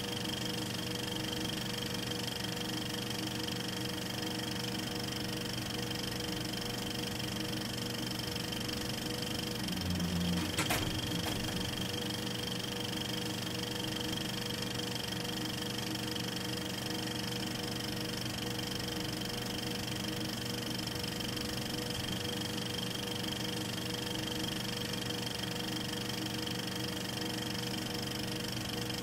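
Steady mechanical whir and hum of a film projector running, with a sharp click about ten and a half seconds in.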